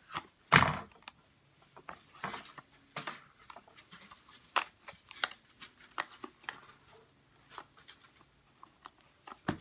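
Irregular crinkles and clicks of a strip of tape and a taped paper tube being handled, with one louder knock about half a second in.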